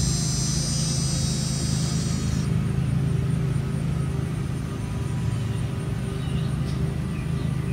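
Steady low mechanical hum, with a dense high-pitched whine over it that cuts off about two and a half seconds in, and a few faint chirps near the end.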